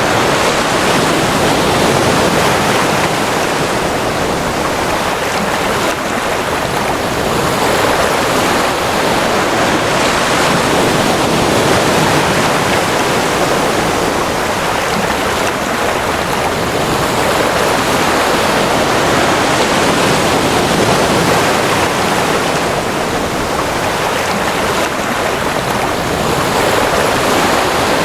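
Ocean waves washing in a continuous rush, swelling and easing slowly every several seconds.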